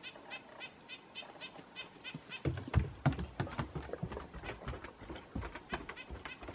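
Male red-breasted nuthatch calling a rapid series of short nasal notes, about four a second, going on through the whole stretch. A burst of low thumps and knocks, the loudest sound, comes about two and a half seconds in and lasts about a second and a half.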